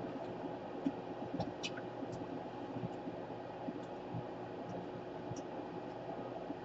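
Steady low hum and hiss of background room noise, with a few light scattered clicks.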